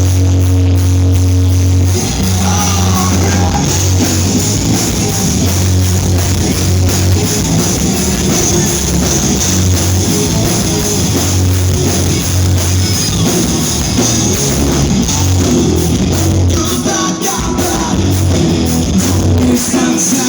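Live rock band playing the intro of a song loud, with electric guitar, bass and drums. It opens on a held low note for about two seconds before the full band comes in.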